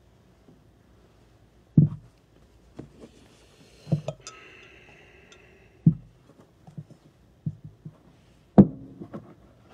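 Knocks and clinks of altar vessels, chalice and ciborium, being handled and set down on the cloth-covered altar while they are purified after communion. There are about five sharp knocks, and one vessel rings briefly about four seconds in.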